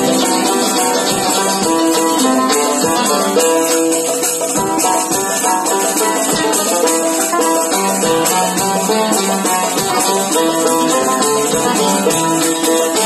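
Instrumental interlude of a devotional praise song: a plucked string instrument plays a running melody of quick, changing notes over light, steady percussion.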